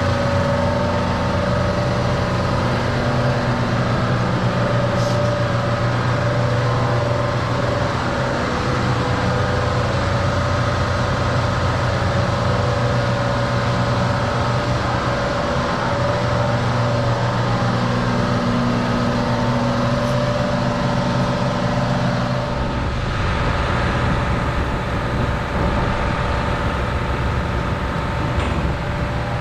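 A motor vehicle's engine running steadily with a constant hum, its low tone changing slightly about 23 seconds in.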